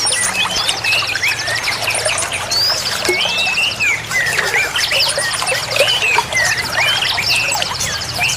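Many songbirds chirping and trilling together over running water: quick rising and falling chirps and fast high trills that repeat every second or two.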